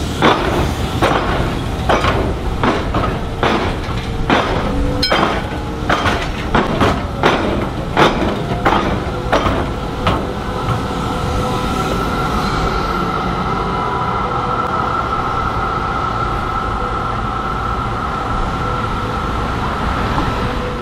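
Articulated B-class tram's steel wheels clunking over the tram square, the crossing where the tram tracks cut across the railway lines: a quick run of sharp knocks. About ten seconds in the knocks stop, leaving a steady tram running rumble with a held high whine.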